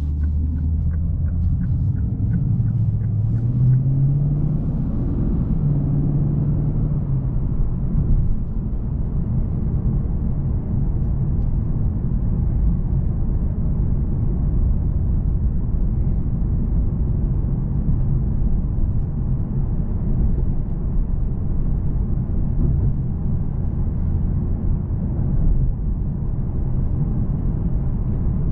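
Lexus RC F Track Edition's 5.0-litre V8, heard from inside the cabin, rising in pitch over the first few seconds as the car pulls away, then running at a steady low note over road noise while cruising. A light, regular ticking sounds in the first few seconds.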